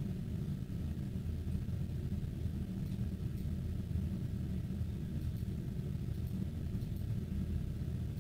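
Steady low background rumble with no speech, and a few faint ticks about halfway through.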